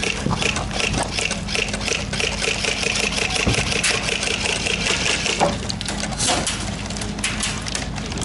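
Airsoft electric guns firing on full auto: a rapid mechanical rattle over a motor whine, running continuously from about a second in until about five and a half seconds in, then thinning to scattered sharp shots.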